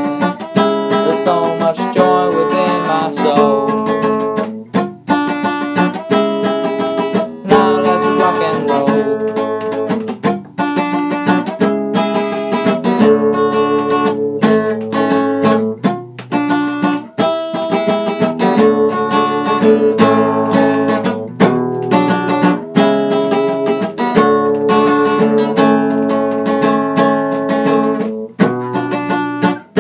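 Acoustic guitar strumming chords in an instrumental passage of a song, with no singing.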